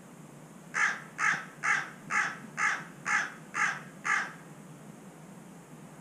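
Carrion crow cawing: a run of eight short caws, evenly spaced at about two a second, starting about a second in and stopping after about four seconds.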